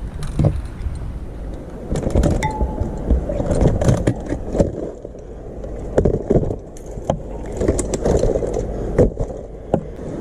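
Irregular clicks, knocks and rattles from a Burley bike cargo trailer being taken apart by hand: a wheel pulled off at its hub and the tubular frame folded, with rustling close to the microphone.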